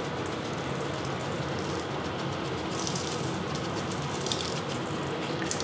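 Coarse seasoning rub shaken from a shaker bottle onto a raw ribeye steak, the granules falling with faint scattered ticks over a steady low background hum.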